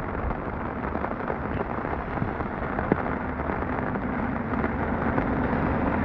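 Heavy rain pattering on an umbrella, a dense steady crackle of drops, with a low rumble building in the second half.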